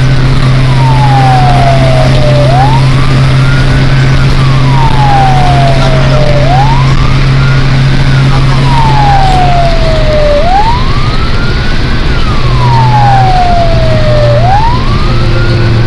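Fire truck siren on a slow wail, rising and falling about every four seconds, over the steady drone of the truck's engine, heard from inside the cab.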